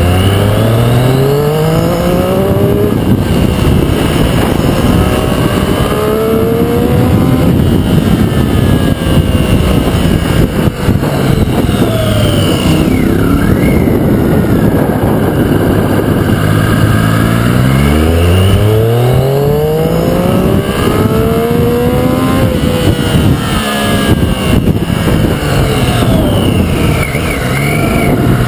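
Triumph Street Triple RX's 675 cc inline-three engine under way, the revs climbing as it accelerates out of bends near the start and again about two-thirds through, then holding steady between the pulls.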